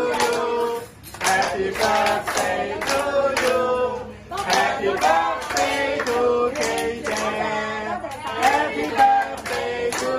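Voices singing, with hands clapping along in time.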